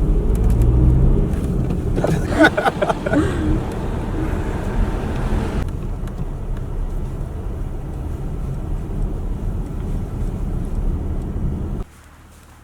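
Car driving, a steady low rumble of engine and road noise. About two seconds in there is a brief pitched, wavering sound over it, and the rumble cuts off suddenly near the end.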